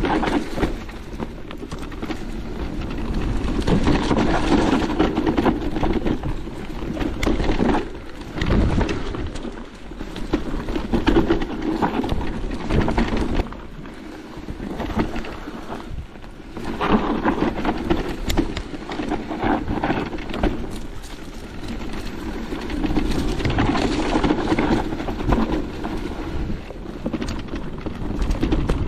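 Merida eOne-Sixty electric mountain bike ridden over a rough trail: wind noise on the microphone and tyre noise that swell and fade every few seconds, with many small knocks and rattles from the bike.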